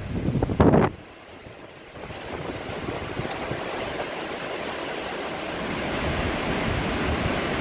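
Storm wind gusting against the microphone, cutting off about a second in. A steady hiss of heavy rain and wind follows and slowly grows louder.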